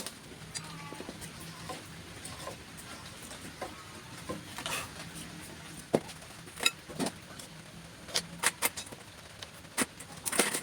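Irregular clicks and knocks of tools and metal parts being handled during work on an electric air compressor. They are sparse at first and come more often in the second half, the loudest near the end.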